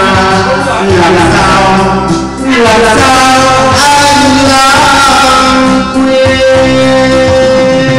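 A song playing: a sung melody over guitar accompaniment.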